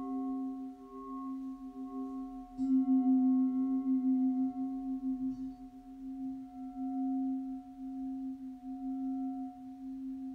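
Singing bowls ringing in long, slowly wavering tones. About two and a half seconds in, a fresh strike brings the lowest tone up loudly, and it rings on and slowly fades.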